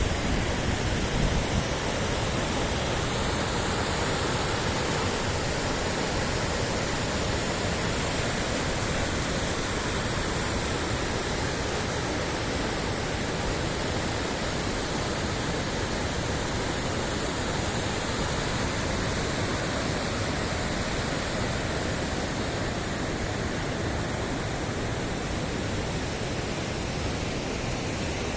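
Steady, even rush of falling water, with a few low buffets right at the start.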